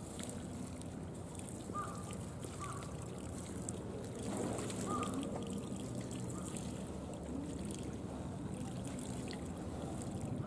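Faint water trickling over a steady outdoor hum, with a few short high chirps now and then.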